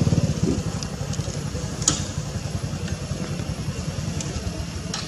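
A small engine running with a rapid, even low pulsing, loudest at the start and easing off a little, with a couple of sharp clicks.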